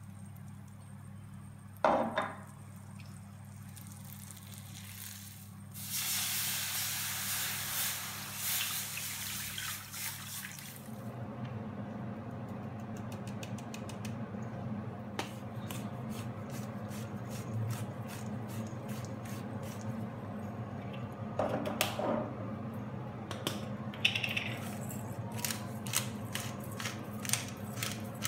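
A sharp knock about two seconds in, then a loud hiss for about five seconds as liquid goes into the hot butter-and-flour roux in a frying pan. After that the thickened white sauce simmers with quick little pops of bursting bubbles, over a steady low hum.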